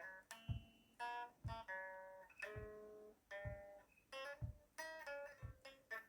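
Acoustic guitar playing an instrumental passage, strummed chords ringing and fading, with a low thump about once a second keeping the beat.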